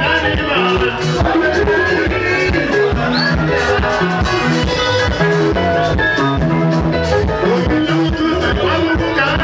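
Zimbabwean rumba band playing live: electric guitars over bass and a drum kit keeping a steady dance beat, with a man singing into a microphone.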